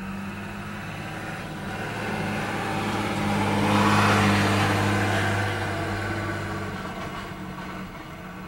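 John Deere farm tractor's engine running steadily under load while pulling a square hay baler, a low drone that grows louder to a peak about four seconds in and then fades.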